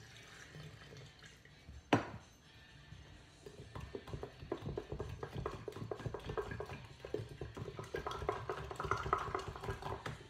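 Water poured into a glass mason jar, a sharp clink of metal or enamelware about two seconds in, then a utensil stirring rapidly in the jar, clicking and scraping against the glass and a stainless funnel as sourdough starter is dissolved in the water.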